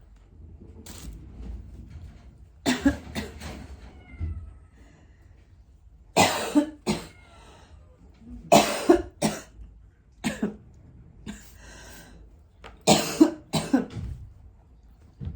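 Kittens: faint high mews, and several groups of loud, short, harsh bursts a few seconds apart.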